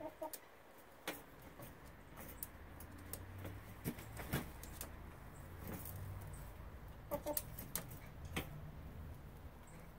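Hens pecking feed at galvanized metal treadle feeders: scattered sharp taps and clicks of beaks and feet on the metal plates and feeder, with a couple of brief hen clucks near the start and about seven seconds in.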